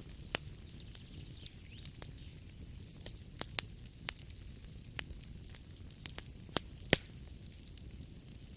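Wood fire crackling in a fireplace: a low steady rumble of flames with irregular sharp pops and snaps, a loud pop about seven seconds in.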